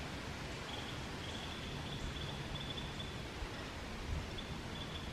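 Quiet outdoor ambience: a steady low background hiss with a faint high-pitched steady note that comes and goes.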